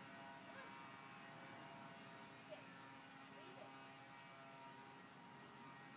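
Near silence, with a faint steady hum throughout and a few faint short chirps.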